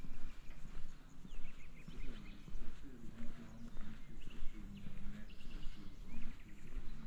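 Small birds chirping in short, quick trills, with people's voices underneath.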